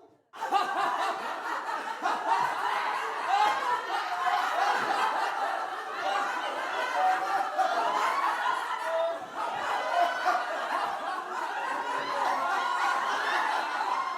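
A group of people laughing together, many voices chuckling and snickering over one another. It starts suddenly about half a second in and carries on without a break.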